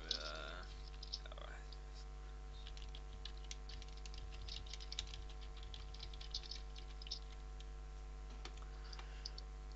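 Faint, irregular clicking, scattered quickly through the middle seconds, over a steady low electrical hum.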